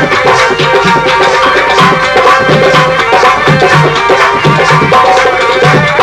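Instrumental interlude of an Indian folk song: a melody of sustained notes over a steady hand-drum rhythm with regular deep drum strokes.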